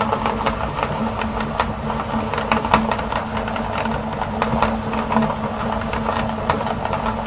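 Electric meat grinder running with a steady motor hum, with irregular cracks and crunches as it grinds up mini ice cream cones.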